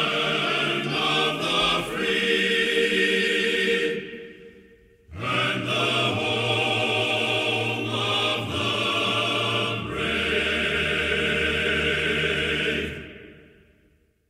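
Closing music with long sustained chords in two phrases, with a brief dip about four seconds in, fading out near the end.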